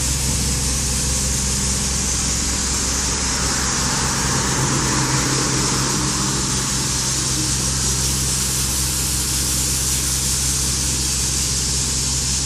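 Mitsubishi L200 pickup's diesel engine idling steadily, with a constant hiss over it.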